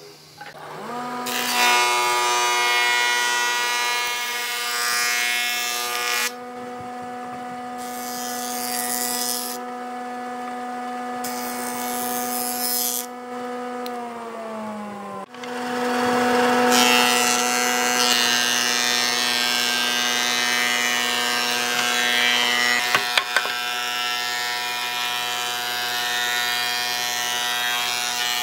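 Electric planer of a combination woodworking machine running, its motor humming steadily while the spinning cutterhead shaves boards fed through it. The loud cutting hiss comes in several passes with short gaps between them during the first half, then runs without a break through the second half.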